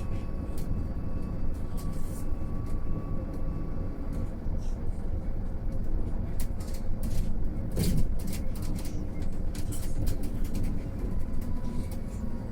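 Mercedes-Benz eCitaro G articulated electric bus on the move: steady road and tyre rumble with a faint, even electric-drive whine, and a run of rattles and knocks about six to nine seconds in.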